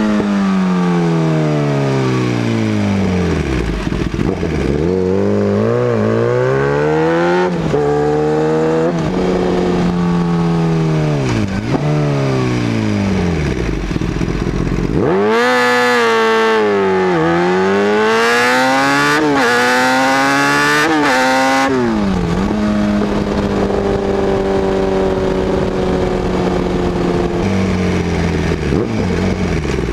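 Kawasaki ZX-10R's inline-four engine through an SC Project exhaust, heard from on board: it slows, then pulls up through the gears, the pitch climbing and dropping at each upshift. About halfway comes the loudest run, a hard acceleration through several quick upshifts, and it settles into a steady cruise near the end.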